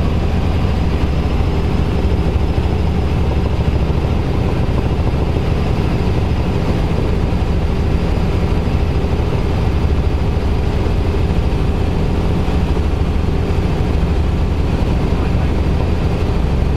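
Robinson R44 helicopter in steady cruise flight, heard from inside the cabin: its main rotor and six-cylinder Lycoming piston engine running at a constant, loud, low pitch.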